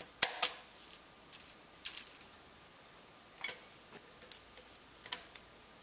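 Pliers working a small steel wire clip onto a bolt: a handful of sharp metallic clicks and ticks at uneven intervals.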